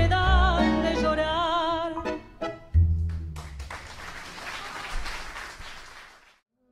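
End of a tango song: a woman holds the last sung note with vibrato over guitar and bandoneon. A final low note from the band comes about three seconds in. The audience then applauds until the sound fades out near the end.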